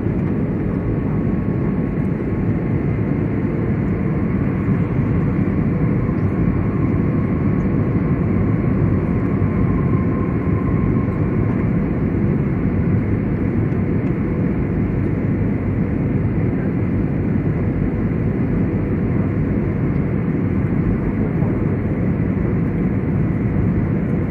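Steady roar of engine and airflow noise inside the cabin of an Airbus A320-family airliner on descent, even and unchanging throughout.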